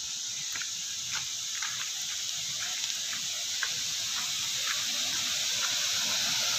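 Water pouring over a small stepped spillway into a pool: a steady rushing hiss that grows gradually louder. Faint short chirps sound now and then over it.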